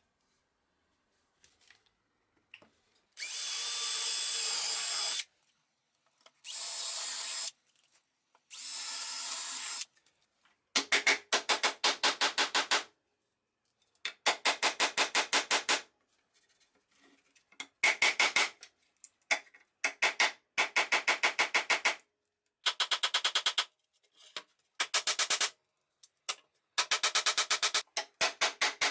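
A power drill runs in three short steady bursts. Then come repeated bursts of about two seconds each of a fast, even, rasping rhythm of tool work.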